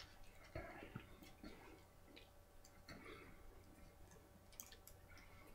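Near silence: room tone with faint scattered clicks.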